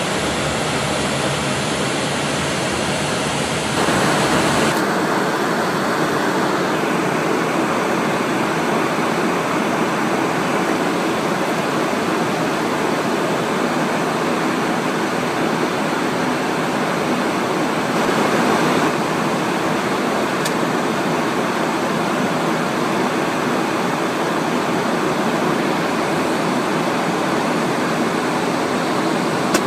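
Steady rushing noise of air and airflow inside an airliner cockpit in cruise flight. The tone shifts a few seconds in, and the noise swells briefly about two-thirds of the way through.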